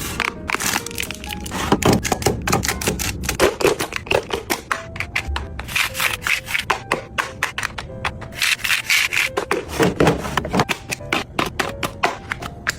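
Objects being handled and arranged by hand: a rapid, irregular run of taps, clicks and rubbing.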